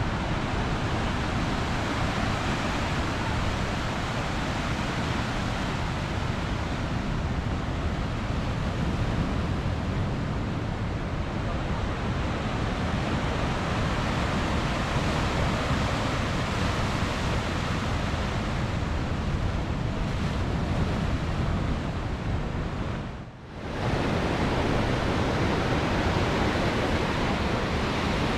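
Wind buffeting the microphone over the steady rush of rough, swirling sea water. The sound drops away for about half a second near the end, then returns.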